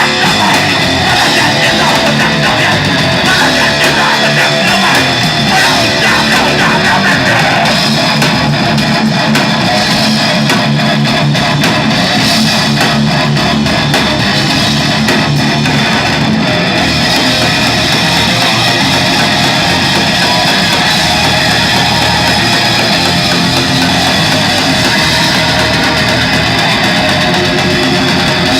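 Live rock band playing loud, with guitars to the fore over bass, steady and without a break.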